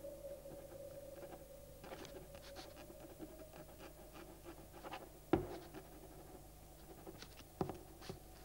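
Pen scratching on paper as a handwritten log entry is written, in many small strokes over a faint steady hum. Two sharper clicks stand out in the second half.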